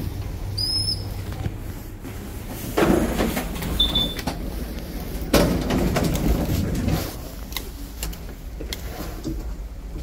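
Lift doors sliding, in two noisy passes about three and five and a half seconds in, with a short high chime just under a second in and a brief beep near four seconds.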